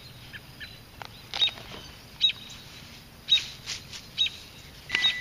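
A bird chirping, short sharp calls about once a second. A steady high tone starts just before the end.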